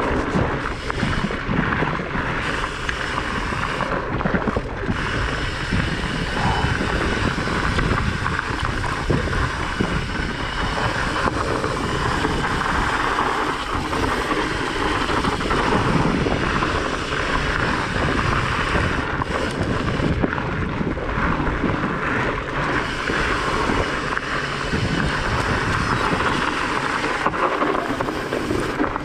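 Wind rushing over the rider's camera microphone, mixed with the steady rumble and crunch of a fatbike's wide tyres rolling over a gravel and dirt trail, with small knocks and rattles from the bike over the bumps.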